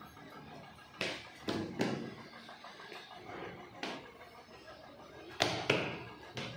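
A series of sharp knocks and thuds at uneven intervals, the loudest a close pair a little past halfway.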